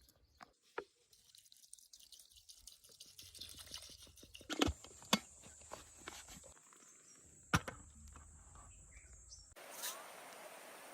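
Pressure cooker being handled on the stove: a few sharp knocks and clicks, then a faint steady hiss starting near the end.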